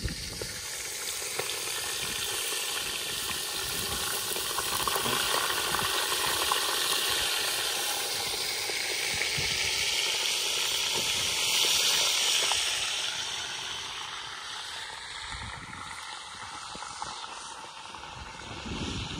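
Food sizzling as it fries in hot oil: a steady hiss that swells to its loudest about twelve seconds in, then eases off.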